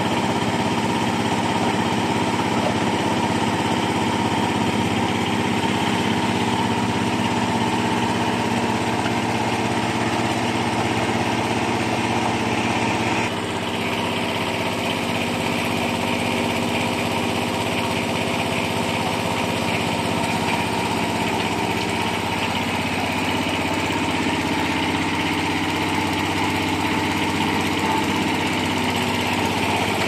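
Small 8-horsepower diesel engine powering the baler's hydraulic pump, running steadily. Its note shifts slightly about 13 seconds in and again later as the press is worked.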